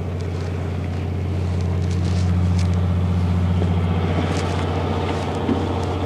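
A fishing boat's engine running steadily, a low drone that swells slightly a couple of seconds in, with faint scattered clicks on top.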